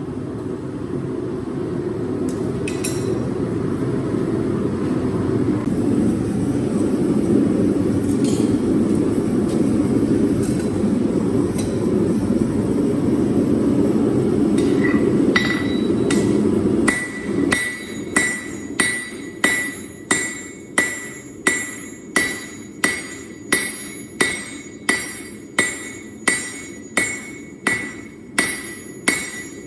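A steady rushing roar that grows louder over the first half. Then, a little past halfway, a hammer starts striking hot steel on an anvil: regular blows about one and a half a second, each with a bright metallic ring, forging out a Damascus billet.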